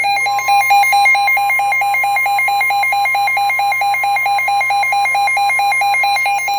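Electronic emergency alert tone: a rapid, evenly repeating beep pattern, about six pulses a second, over a steady higher tone, cutting off abruptly near the end.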